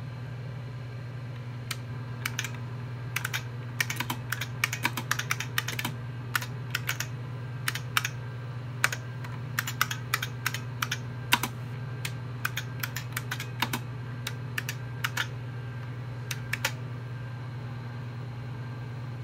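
Typing on a computer keyboard: a run of irregular key clicks, entering a line of text into a word processor. The clicks start about two seconds in and stop a couple of seconds before the end, over a steady low hum.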